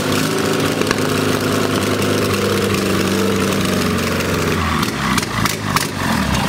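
A VW 36 hp 1200 cc air-cooled flat-four engine running steadily on its first successful run after being revived. About five seconds in, its even note breaks up.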